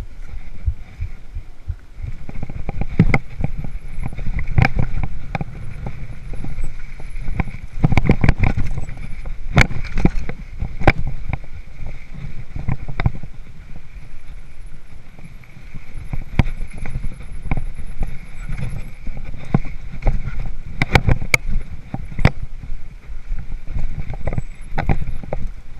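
Hardtail mountain bike ridden over a rough dirt trail: chain and frame clattering, with many irregular sharp knocks from bumps over a constant low rumble.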